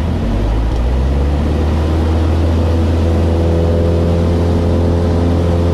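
Maule light aircraft's piston engine and propeller running steadily, heard inside the cockpit. Its pitch steps up slightly in the first second, then holds steady.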